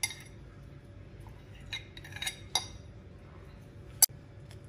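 A spoon clinking against a glass bowl as marinated chicken is scraped out of it into a wok: a few separate, short ringing clinks, with a single sharp click about four seconds in.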